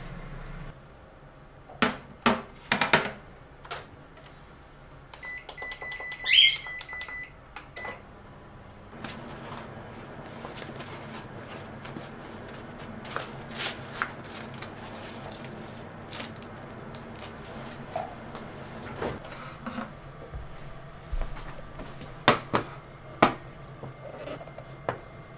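Microwave oven being set and run: a few clicks and a beep, then a steady low hum from about nine seconds in while it heats. A few sharp knocks near the end.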